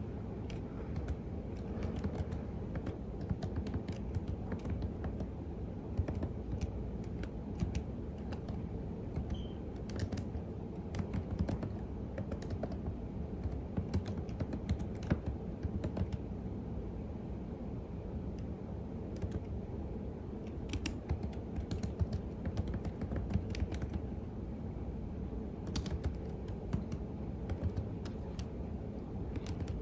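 Steady, continuous typing on a computer keyboard: rapid, irregular key clicks with the occasional louder keystroke, over a low steady hum.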